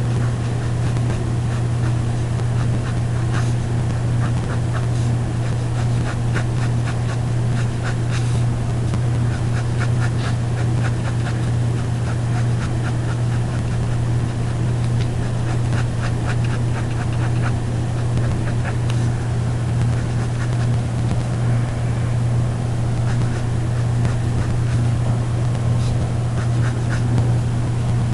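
A steady low hum, with faint quick scratching of a colored pencil shading on paper, clearest through the middle of the stretch.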